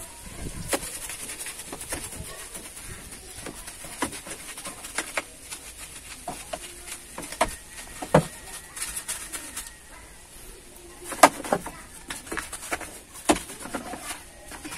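Paintbrush scrubbing soapy water over a car's engine and wiring, with irregular sharp knocks and clicks as the brush and hands hit metal parts. A bird coos in the background.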